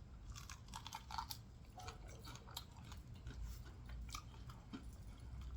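Faint close-miked chewing of fried catfish tail, with scattered small crunches and mouth clicks.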